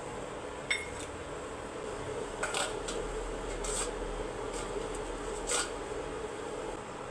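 A kitchen utensil clinking against a pot about four times, a few short knocks spread over several seconds, over a steady background hum.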